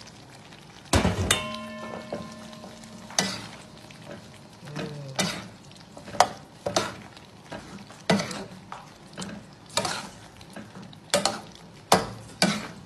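Slotted metal spatula stirring fried chicken and sauce in a pan, knocking and scraping against it in repeated strokes over a low sizzle. One hard knock about a second in leaves the pan ringing for a couple of seconds.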